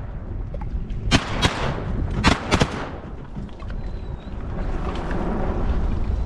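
Shotgun shots at ducks: four sharp shots in two quick pairs, the shots in each pair about a quarter-second apart and the pairs about a second apart. A steady rushing noise follows.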